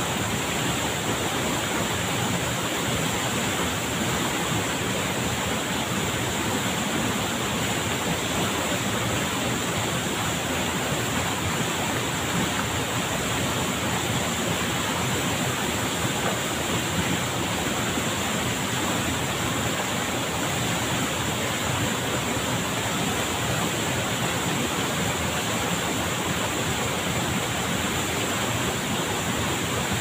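Waterfall pouring down a rock face into a shallow pool: a steady, even rush of falling and churning water.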